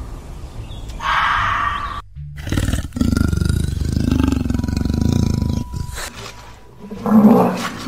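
A red fox gives one short call about a second in, then a leopard growls and roars in a low, rough run for about three seconds. A short, loud, low call comes near the end.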